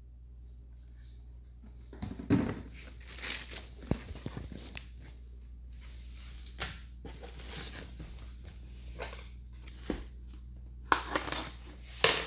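Unboxing handling noise: packaging crinkling and rustling, with scattered clicks and knocks. It is busiest about two seconds in and again near the end.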